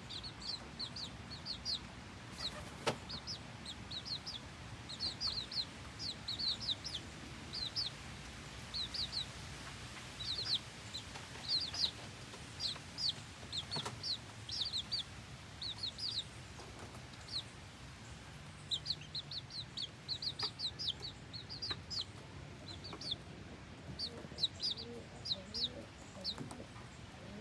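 Domestic chicks peeping: many short, high, falling cheeps in quick clusters of three or four, with a few soft taps between them.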